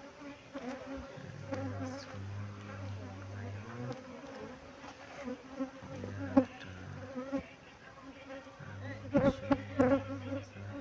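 Honeybees buzzing close by, the drone swelling and fading in stretches of a second or two as they fly past. There are a few short knocks and taps, the sharpest about six seconds in and twice near the end.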